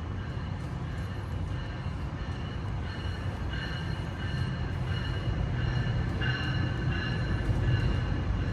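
A real train running by: a steady low rumble that grows slightly louder, with thin high tones coming and going over it from about three seconds in.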